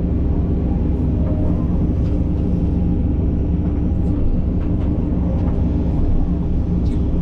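Takeuchi TB2150 excavator's diesel engine running steadily at working speed, a low even hum with a few faint clicks over it.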